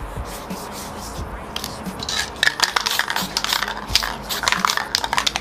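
Gloved hand rubbing and scraping over a spray-painted phone back, a dense run of crackling scratches that starts about one and a half seconds in.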